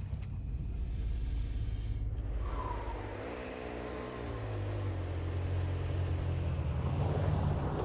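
Toyota Tacoma pickup's engine running as it drives through snow, with an abrupt break about two seconds in; afterwards the engine note wavers up and down as the truck comes on through the snow.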